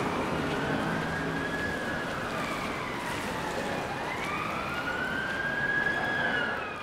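An emergency vehicle's siren wailing, its pitch sliding slowly down and back up, over a steady hiss of rain and traffic.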